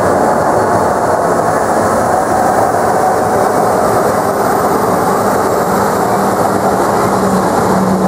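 Twin GE CF34-10E5 turbofans of an Embraer 195 airliner taxiing: a loud, steady rushing noise with a faint high whine above it.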